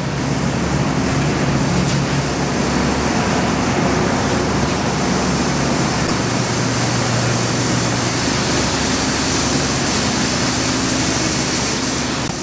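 Steady, loud rushing noise of underground machinery and moving air, with a low hum underneath.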